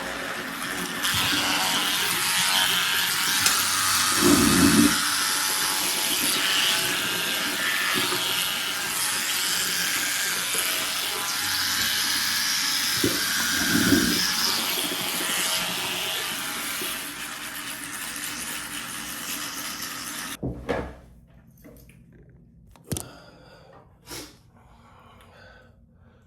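Shower running: a steady hiss of water spray, which stops suddenly about twenty seconds in. A few short knocks follow.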